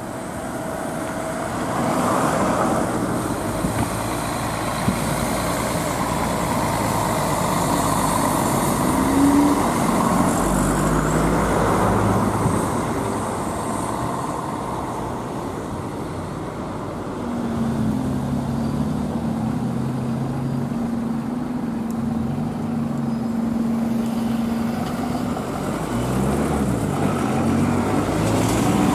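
Diesel bus engines running as buses move through a busy bus station, with traffic noise. One engine's pitch rises about nine seconds in, and a steady engine note holds for several seconds in the second half.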